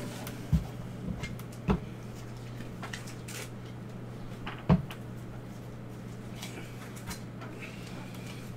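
Light clicks and knocks of a clear plastic card case and trading cards being handled on a table, with three sharper knocks about half a second, a second and a half, and nearly five seconds in, over a steady low hum.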